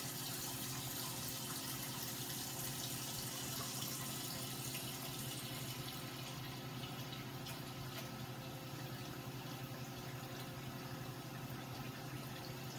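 Pancake batter sizzling in a nonstick frying pan over a low gas flame: a steady, even hiss that thins a little in its highest part about halfway through.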